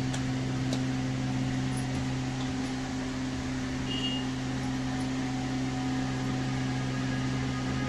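Steady low hum of a motor or electrical appliance, unchanging throughout, with a couple of faint ticks near the start.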